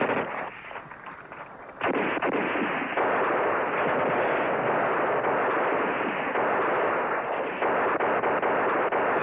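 Heavy small-arms gunfire: many shots overlapping into a dense, continuous crackle. After a loud hit at the start and a short lull, it breaks out again abruptly about two seconds in and keeps up without a break.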